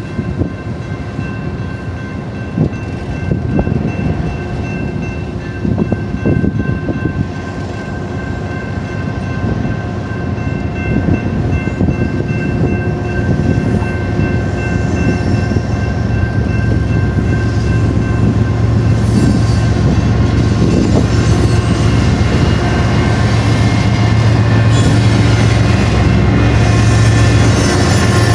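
A slow double-stack container train rolls past, its wheels rumbling and clattering over the rails, while the grade-crossing warning bell keeps ringing. Over the second half, the low hum of the train's mid-train GE Evolution-series diesel locomotives (ES44AC/ES44C4 helpers) builds and grows louder as they approach.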